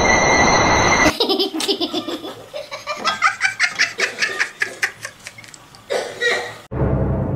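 A person laughing hard in quick, rapid bursts, starting about a second in and cutting off abruptly near the end. About a second of steady hissing noise comes before it.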